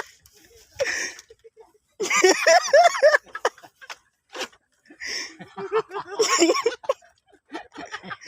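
People's voices laughing and chattering in two stretches, one about two seconds in and another about five seconds in, with short pauses between.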